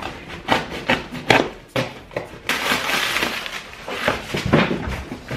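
Knife slitting packing tape on a cardboard box: a quick run of sharp cracks and crackles, then a longer rough tearing rasp about halfway through as the tape and cardboard flaps are pulled open, and a few more sharp knocks of cardboard near the end.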